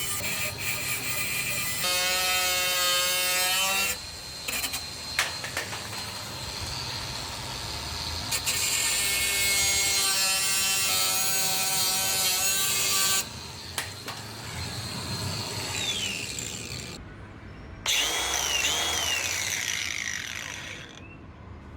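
Cordless angle grinder running and cutting in several bursts, its motor giving a whining tone under the grinding noise. It stops briefly about four seconds in and again near thirteen seconds, and cuts off near seventeen seconds before starting again.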